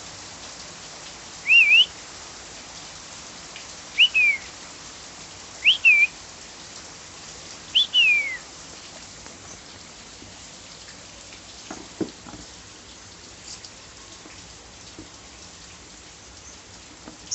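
Steady rain falling, with a bird calling four times in the first half: short whistled notes that rise and then fall, about two seconds apart. After that only the rain, with a brief knock about twelve seconds in.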